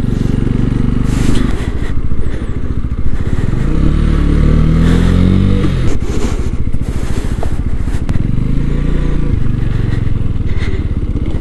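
Small 125cc motorcycle engine running under way, its pitch rising as it revs up through the gears about a third of the way in, then dropping and rising again near the end.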